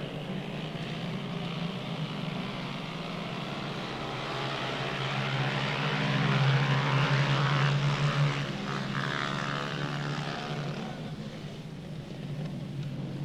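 An engine drone passing by: a steady pitched hum that grows louder to a peak a little past halfway, then fades away.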